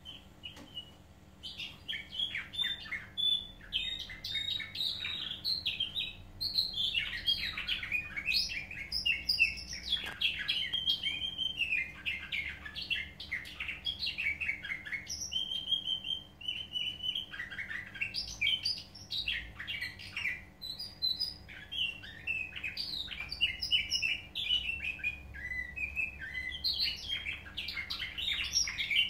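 Canary singing a nightingale-style song: a long, unbroken run of rapid trills and varied whistled notes, starting about a second and a half in.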